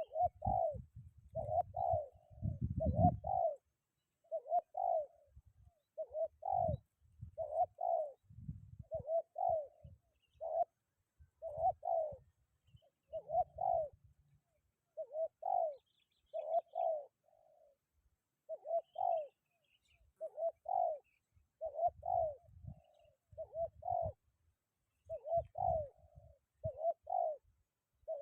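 Spotted dove (tekukur) cooing, one short cooing phrase after another with brief pauses, with gusts of wind rumbling on the microphone, heaviest in the first few seconds.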